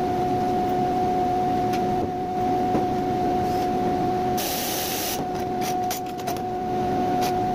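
Ingersoll Rand air compressor running with a steady hum and whine, and a short, loud burst of hissing air about halfway through, followed by a few sharp metallic clicks.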